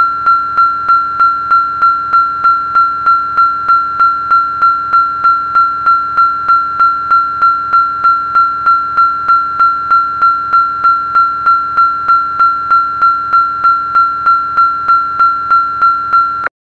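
Australian level crossing bell ringing fast and evenly, about two and a half strikes a second on one clear ringing note; it stops abruptly near the end.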